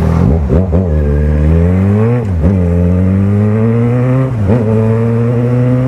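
Yamaha XJ6's inline-four engine, with an aftermarket Power exhaust, accelerating hard. The pitch climbs steadily and dips sharply three times as the rider shifts up through the gears.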